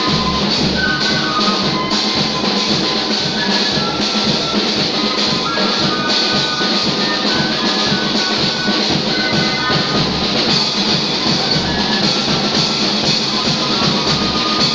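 Loud music with a steady drum beat.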